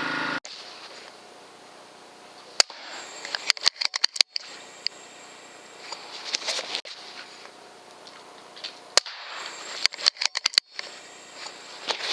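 Pre-charged pneumatic air rifles firing: sharp single cracks, each followed by a cluster of quick metallic clicks as the action is worked for the next shot. It happens twice, a few seconds apart.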